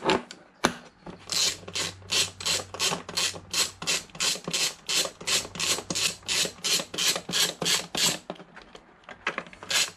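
Socket ratchet wrench clicking in quick, even back-and-forth strokes, about three a second, as bolts on a motorcycle airbox's air chambers are wound out; the strokes stop near the end.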